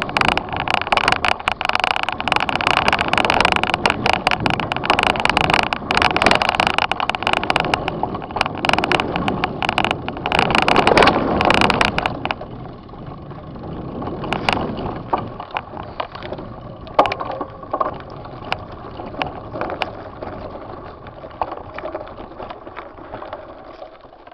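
Mountain bike rattling and jolting down a dirt trail, with wind rushing over the handlebar-mounted camera and many sharp knocks from the bumps. About twelve seconds in it gets much quieter as the bike slows, leaving a few scattered knocks that fade toward the end.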